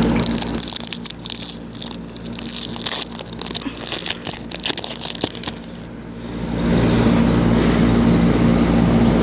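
Baseball card packs and cards being handled, with short crackling and scraping clicks. Under it a steady mechanical hum drops away about half a second in and comes back about six and a half seconds in.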